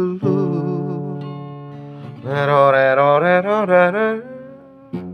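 Singing with guitar accompaniment: the sung word 'dahulu' is held with vibrato at the start, and a second long, wavering melodic phrase follows about two seconds in over steady low chords.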